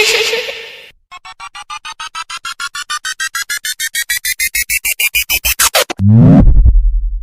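Synthesized video-editing sound effects: a short noisy hit, then a string of electronic beeps that speed up and rise in pitch for about five seconds, ending in a loud, deep bass boom with a falling sweep.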